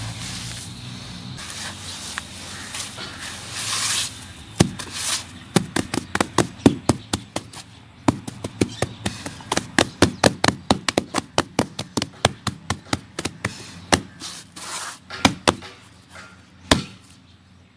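Bare hands crumbling and rubbing a dry cement-and-ash mixture in a plastic basin, then patting its flattened surface in quick, sharp pats about four a second. The patting starts about four seconds in and stops shortly before the end.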